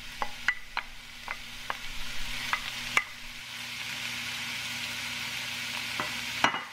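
Raw ground beef frying in a hot oiled pan with sautéed onion, garlic and red chili: a steady sizzle. Sharp ticks come through it often in the first three seconds, then the sizzle runs on evenly and falls away near the end.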